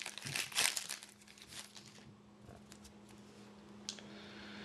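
Crinkling of a plastic trading-card pack wrapper being handled, in about the first second, then quiet with a faint steady hum and one small click near the end.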